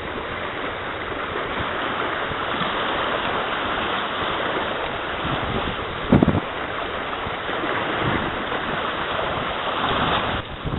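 Steady rushing of river water, with wind buffeting the microphone. It swells through the middle and drops away sharply near the end, with one dull thump about six seconds in.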